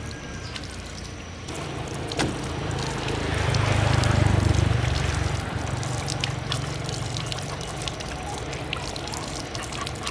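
Water pouring, swelling to its loudest about four seconds in and then running on more steadily, with a few scattered clicks.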